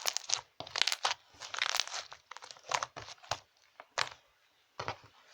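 Slime being squeezed and pressed by hand for ASMR: irregular sticky crackling and sharp pops, with a short pause near the end.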